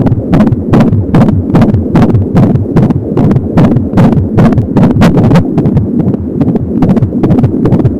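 Fetal heartbeat picked up by an Angelsound handheld fetal Doppler at 25 weeks of pregnancy: a fast, even galloping pulse of about three beats a second (around 170 a minute) over a continuous low swishing.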